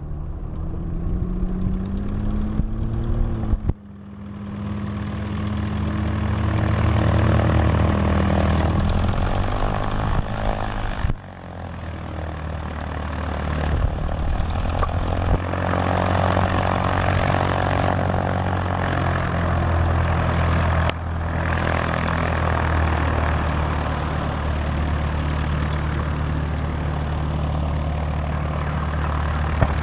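Piston engines of light single-engine propeller planes, a Piper Cherokee Warrior and a Mooney 201, running at low taxi power with a steady propeller drone. The engine pitch rises over the first few seconds, and the sound breaks off abruptly a few times where the recording is cut.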